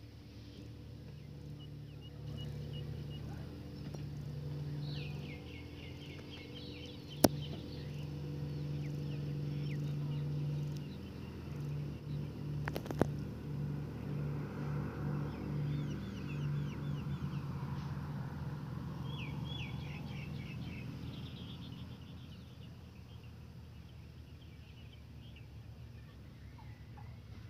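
Distant small propeller aircraft's engine droning as it comes in to land: a steady low hum that swells and pulses in the middle and fades away near the end. Birds chirp in short high trills over it, and two sharp clicks sound in the first half.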